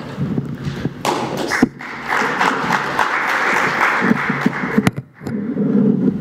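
Audience applauding, with scattered thumps and knocks; the clapping stops about five seconds in.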